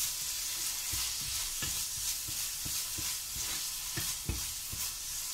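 Spatula stirring a thick sprouted moong masala in a frying pan over a steady sizzle, with short, irregular soft knocks of the spatula against the pan about twice a second.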